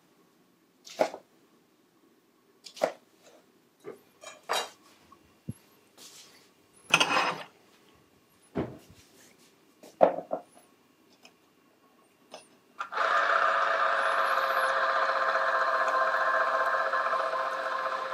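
A knife cutting lemons on a cutting board, a few scattered knocks and clicks. About thirteen seconds in, an electric citrus juicer's motor starts and runs steadily as a lemon half is pressed onto its cone.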